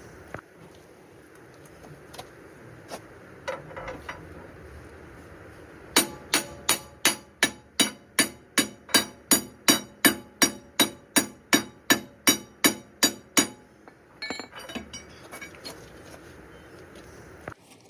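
Hammer striking metal in a steady run of about two dozen ringing blows, roughly three a second, with scattered clinks and knocks of tools before and after.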